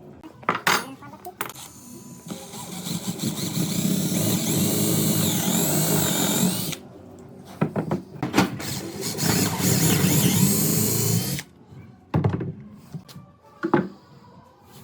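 Handheld power drill running in two long runs, its pitch wavering with the trigger, with a few sharp knocks between and after the runs.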